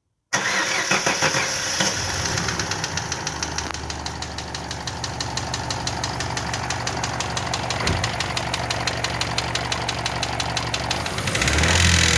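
Chevrolet engine catching about a third of a second in and then idling with a steady, rapid knock, the knocking the owner is showing as a fault. It picks up briefly near the end.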